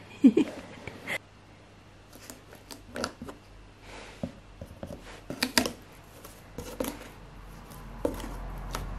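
A ragdoll kitten scrabbling and pawing at a cardboard box: irregular scratches, rustles and light taps of claws and paws on cardboard, coming in small clusters.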